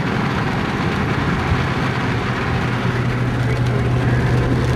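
Steady vehicle noise, a low engine hum under an even rushing of road or wind noise; the hum grows a little stronger near the end.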